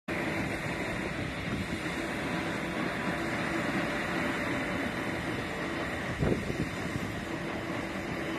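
Steady rumble of jet engine noise across an airfield as a Singapore Airlines Airbus A380 rolls for takeoff, with one brief thump about six seconds in.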